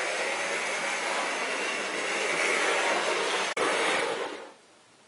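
A model steam locomotive running along sectional track, its motor and wheels giving a steady whirr. There is a brief break about three and a half seconds in, and about a second later the whirr dies away as the locomotive comes to a stop.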